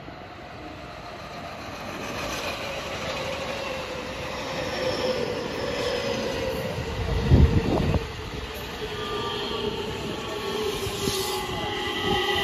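An electric multiple-unit train pulls in alongside the platform, its running noise growing louder. Its motor whine slowly falls in pitch as it slows. A heavy low thump comes about seven seconds in.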